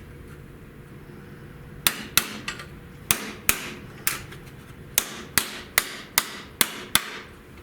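A hammer striking sheet steel about a dozen times, in quick, slightly uneven blows that begin about two seconds in, each with a short ring. The blows are tapping a new floor patch panel into shape so that it sits flush in a rusty car floor.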